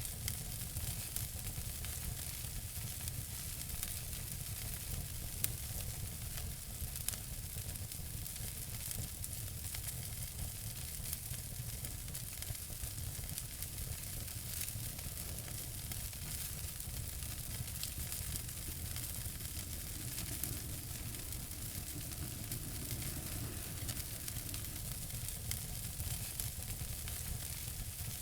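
Wood fire burning in a fireplace, with steady crackling and hiss and a couple of sharper pops.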